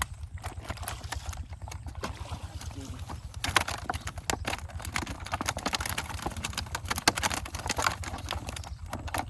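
Irregular knocks and splashes of live fish being handled, flapping against each other and their container, over a steady low hum.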